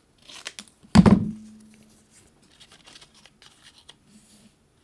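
Paper craft leaves being handled and sorted: light rustling and crinkling of paper, with one sharp thump about a second in.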